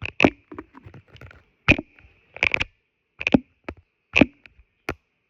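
Irregular run of sharp clicks and taps, about a dozen over several seconds, from small squishy toys being handled.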